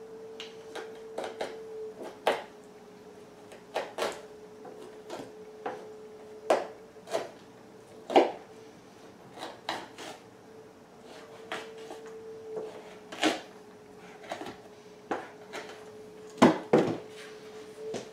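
Two-handled fleshing knife scraping fat and flesh off a beaver pelt stretched over a fleshing board: irregular short scrapes and knocks, the loudest near the end. A steady hum runs underneath.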